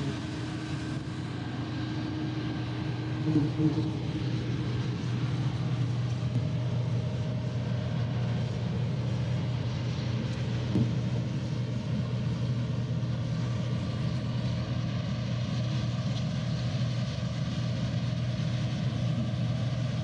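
Case IH Axial-Flow combine running at a steady engine hum while harvesting soybeans, with a brief louder swell about three seconds in.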